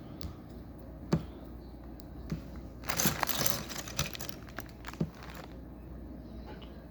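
Small plastic Lego pieces being handled: a few sharp clicks and taps, with a short burst of plastic crinkling about three seconds in.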